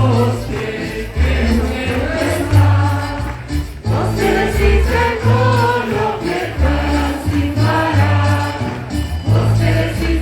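A large mass choir of about a thousand voices singing in unison over an instrumental accompaniment, with sustained bass notes that change every half second or so.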